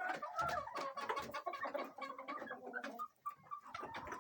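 Domestic hens clucking: a flock of chickens making many short, overlapping calls, with small scratching clicks, and a brief lull about three seconds in.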